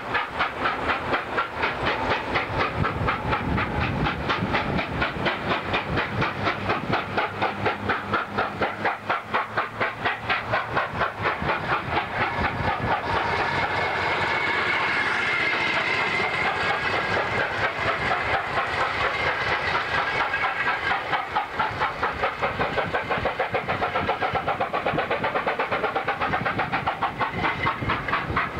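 Steam locomotive 3801 beating out a fast, even exhaust, about four beats a second, as it works a train past. Around the middle the beats give way to a steadier hiss with rail clatter, then return.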